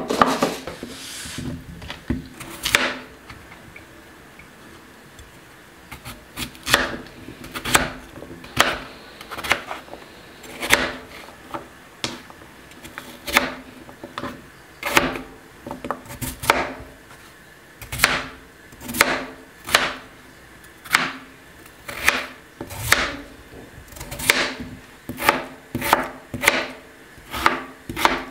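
Chef's knife cutting through a potato and knocking down onto a plastic cutting board, one cut every second or two, quickening to about two a second near the end.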